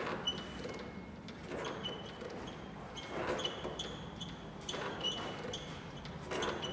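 Slow, evenly spaced thuds, one about every second and a half, each with a short high ringing tone after it, over a low steady hum.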